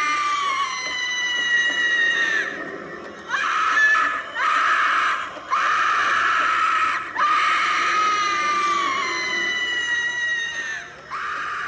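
Animatronic Halloween ghoul prop shrieking through its built-in speaker: about five high, thin screams back to back, each sliding down in pitch, with short breaks between them.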